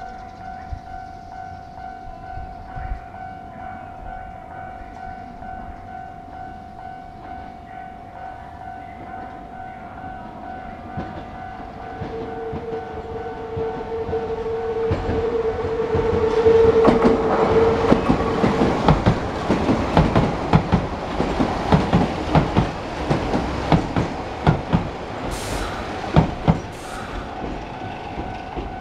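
Japanese level-crossing alarm ringing with a steady pulsing tone as a Nose Electric Railway train approaches. A steady tone sounds for several seconds, then the train passes over the crossing about halfway through, its wheels clacking over the rail joints. The alarm is heard again as the train clears.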